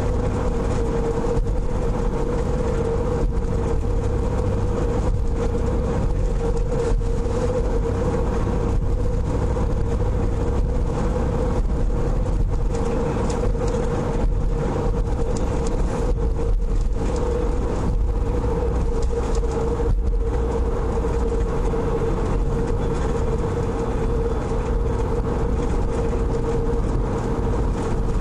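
Steady engine and road noise heard inside a moving car's cabin, with a constant hum running through it.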